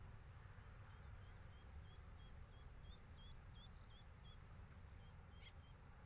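Faint high chirps from a bird, about three a second, in a run of a few seconds, then a few more near the end, over a low rumble. A single sharp tick comes shortly before the end.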